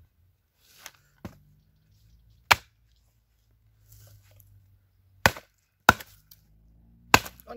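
Axe chopping into wood: two light knocks, then four sharp blows spaced a few seconds apart, the last two close together.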